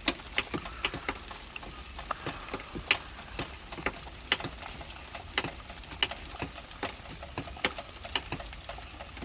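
Steady rain with large drops tapping irregularly close by, several sharp ticks a second over a soft hiss.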